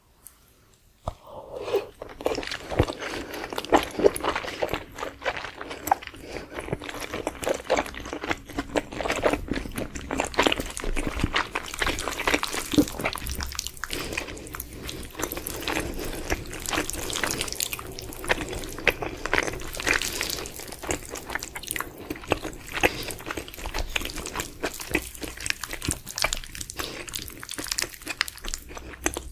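Close-miked eating sounds: a person biting and chewing a sauce-coated dumpling and soft cheese-topped spicy noodles, a dense run of small wet mouth clicks. The sounds start about a second in.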